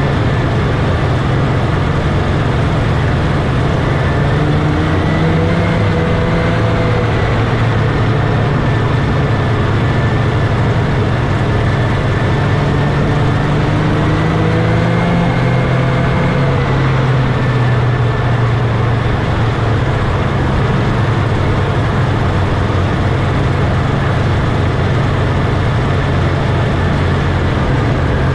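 Vintage Scorpion snowmobile's two-stroke engine running steadily under the rider while crossing snow. The engine note swells up and settles back down twice.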